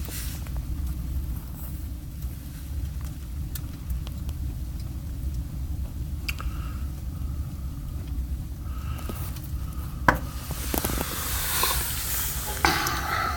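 Wood fire burning in a stove with its lower draft damper slightly open: a steady low rumble of the draw with scattered crackles, and a louder hiss building near the end.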